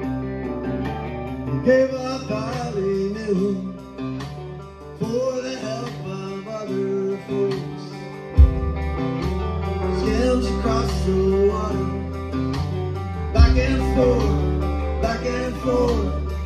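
Live roots-rock band playing an instrumental passage: electric and acoustic guitars over bass and drums, with two heavy low hits about eight and thirteen seconds in.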